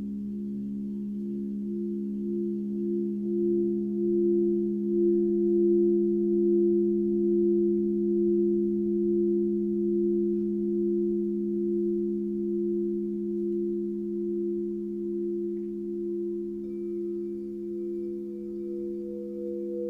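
Singing bowls ringing together in a sustained, wavering chord of several pitches. A higher bowl joins about seventeen seconds in.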